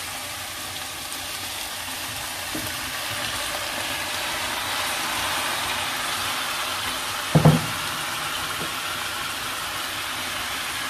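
Chopped vegetables for ratatouille sizzling steadily in oil in a pan, with one brief knock about seven and a half seconds in.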